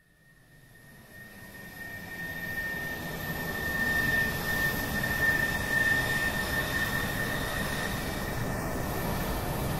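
Jet aircraft engine noise: a steady rushing roar with a steady high whine, fading in from silence over the first few seconds and then holding steady.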